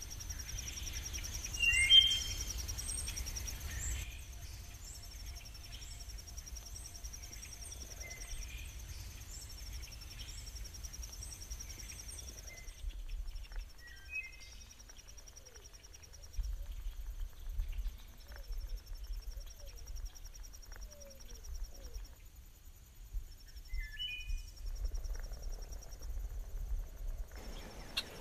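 Insects trilling steadily in a high band, with a regular high chirping through the first half, and short bird calls now and then, the loudest about two seconds in, over a low rumble.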